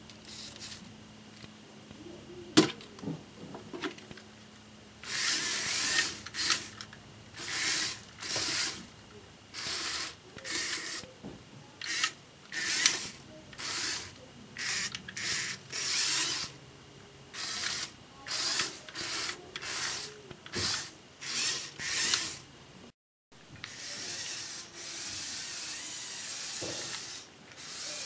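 A few plastic clicks as a Lego robot is handled. Then its geared electric motors whirr in short starts and stops, about one a second, as the omniwheel chassis drives. After a break, a steadier stretch of motor whirr.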